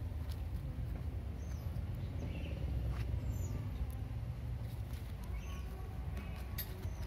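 A kitten chewing at a scrap of food on the ground, with a few faint clicks, over a low steady rumble; short bird chirps come several times in the background.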